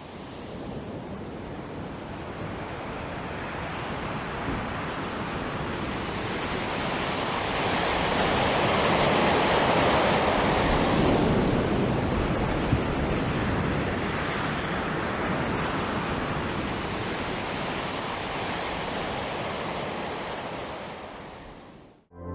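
Big sea waves breaking: a continuous rush of surf that fades in, grows loudest around the middle, then eases and fades out.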